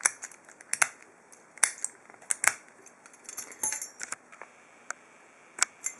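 Metal padlock and picking tools being handled: scattered sharp clicks and light taps, about a dozen, with a quick cluster a little past halfway.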